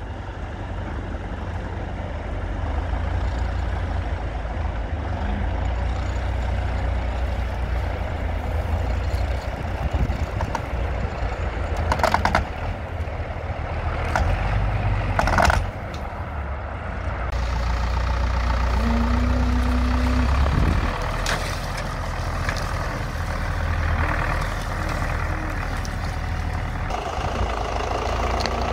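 MTZ Belarus tractor's diesel engine running steadily under load as it pulls on a cable tied to a tree stump, with two sharp cracks around the middle.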